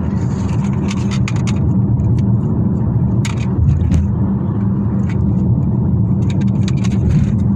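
Hailstorm: a steady roar with many scattered sharp hits of hailstones striking hard surfaces.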